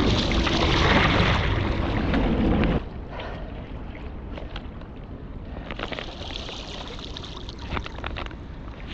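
Water noise from the river and the wet paddling mitts, loud for about three seconds, then dropping suddenly to a quieter wash with small splashes and clicks.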